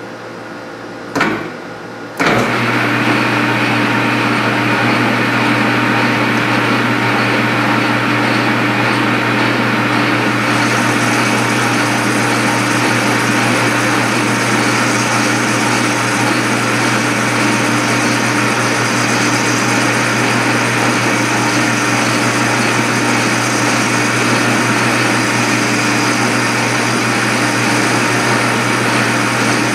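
Metal lathe starting up about two seconds in, then running steadily with a hum and a whine while turning a bronze bar, taking a light cut. A brighter hiss joins about ten seconds in.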